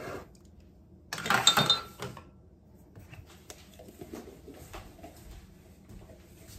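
A metal spoon clinking and scraping against a ceramic mug for about a second, with a brief ringing note, then a few faint knocks.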